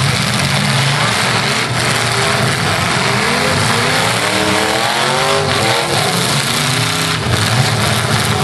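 Several full-size demolition-derby cars' engines running and revving hard over a dense roar, with a few sharp knocks from the cars crashing into one another.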